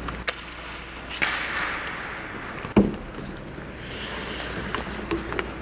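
Ice hockey play: sharp clacks of sticks and puck and skates scraping the ice, with one loud knock about three seconds in.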